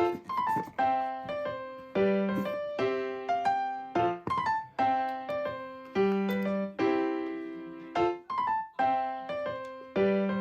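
Background music: a light electric-piano melody of short decaying notes over a repeating pattern.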